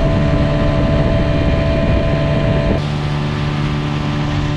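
Outboard motor of a small open boat running steadily at speed, with water rushing along the hull and wind on the microphone. The engine's tone shifts abruptly almost three seconds in.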